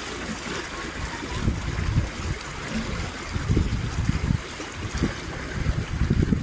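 Water rushing and splashing past a moving boat, with irregular low rumbling surges.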